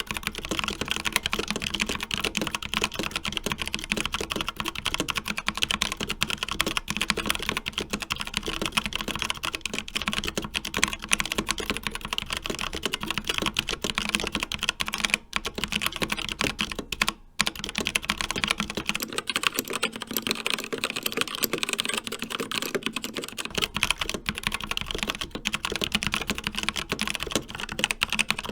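Fast, continuous typing on mechanical keyboards. It starts on an Endorfy Thock TKL with tactile Kailh Brown switches. About two-thirds of the way in it changes to a CZC Dwarf with linear Kailh Red switches.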